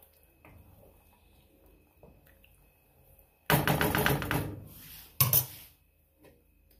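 Wooden spoon knocked against the rim of a nonstick pan of curry: a sudden loud clatter about three and a half seconds in, then a second, shorter sharp knock about a second and a half later.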